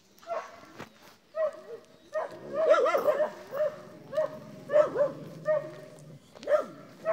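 A dog barking over and over, a bark roughly every half second, with a quick flurry of barks near the middle.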